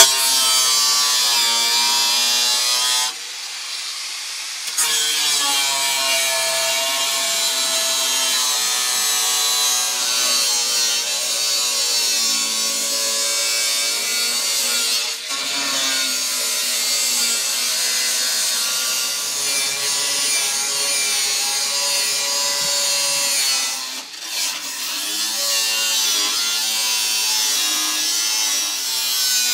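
Power grinder cutting through rusted sheet-steel body panel, its motor pitch wavering as it bogs under load while the wheel works along the cut line. The cutting eases briefly about three seconds in and dips again twice, near the middle and later.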